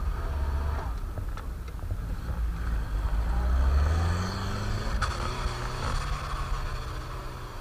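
UAZ-469 off-roader's engine running under load as it drives past on snow. The pitch rises as it revs up from about two and a half seconds in, loudest near four seconds, then settles to a steady pull as it moves away.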